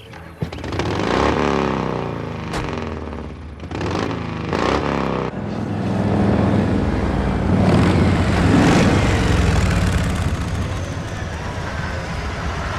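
Motor vehicle engines revving and then running steadily as vehicles drive off, with the pitch rising and falling twice in the first few seconds.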